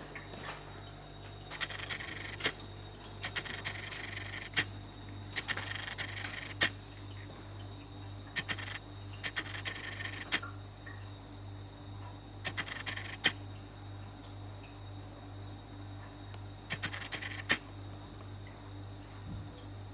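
Short clusters of sharp clicks and taps on hard plastic, several times over, as a cat paws at a refrigerator's water dispenser, over a steady low hum.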